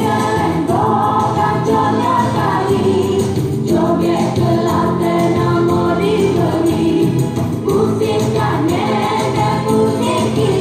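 Joget dance music playing, a Malay folk song with singing over a steady accompaniment.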